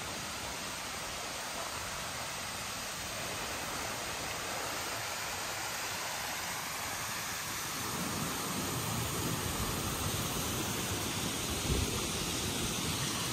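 Steady rushing of a mountain stream, an even hiss of running water, with a few soft low thumps in the second half.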